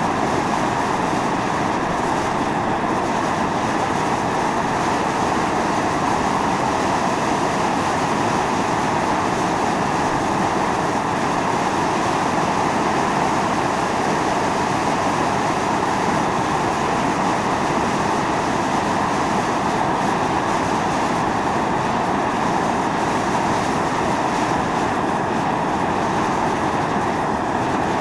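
Volcanic fumarole venting steam: a steady, unbroken rushing hiss at an even level.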